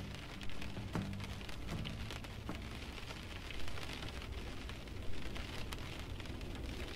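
Steady rain, with many small drops tapping on window glass.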